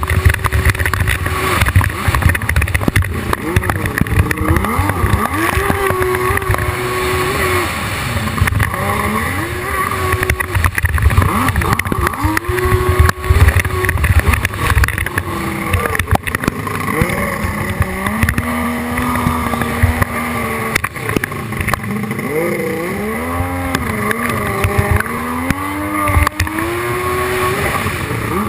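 Hydrospace 1100 racing jet ski engine revving up and down as it runs on the water, its pitch repeatedly rising and falling, held lower for a couple of seconds past the middle and swinging quickly near the end. Under it is a dense low rumble with many short knocks, typical of water slapping and wind on the hull.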